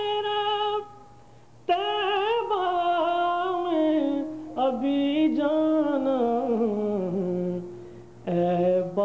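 A man singing an Urdu naat in long, wavering held notes. The singing breaks off briefly about a second in and again near the end.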